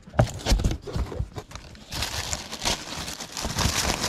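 Cardboard box flaps being opened and handled, with short knocks and scrapes. From about two seconds in, the plastic wrapping around a new printer crinkles steadily as hands reach into the box.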